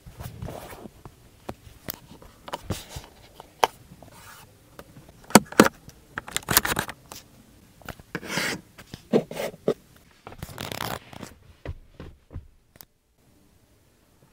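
Irregular rubbing, scraping and clicking handling noises from a hand brushing over the car's seat upholstery and interior trim, with a few louder swishes in the middle, falling to near silence about a second before the end.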